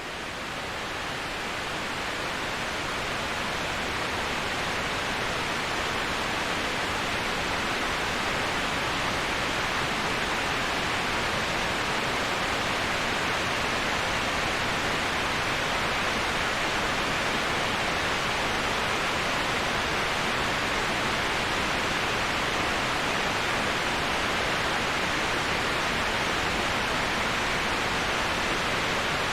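Waterfall: a steady, even rush of falling water that swells up over the first few seconds and then holds level.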